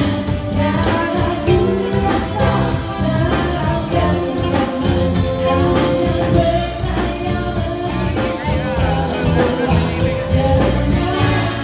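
Live pop-rock band: a woman singing lead into a microphone over electric guitars and a steady drum beat.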